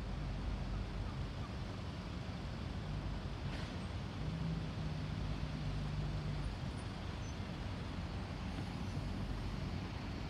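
Low, steady engine hum over outdoor background noise from vehicles held at a closed railway level crossing. The hum grows a little stronger for about two seconds midway.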